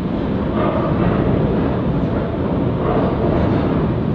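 Steady loud rushing noise of wind buffeting the microphone over churning, foaming tsunami floodwater, swelling slightly every second or so.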